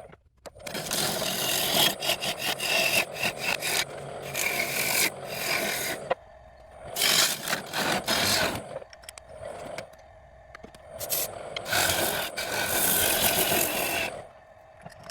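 Turning tool cutting a sugar maple bowl blank spinning on a wood lathe, shaping the outside of the bowl. The cutting comes in short stretches that start and stop abruptly, with quieter gaps between.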